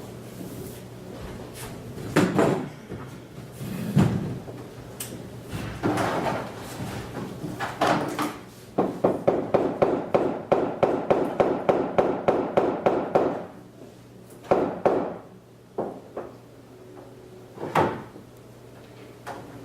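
A series of knocks and clunks, like objects being handled and set down, with a run of quick, evenly spaced clicks in the middle, about four or five a second for around four seconds. A low steady hum lies underneath.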